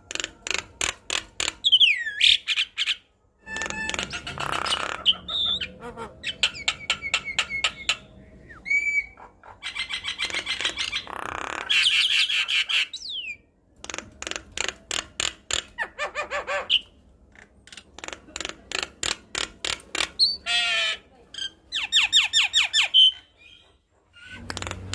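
Javan myna (jalak kebo) singing vigorously: bouts of fast rattling clicks, harsh squawks and short whistled glides, broken by brief pauses.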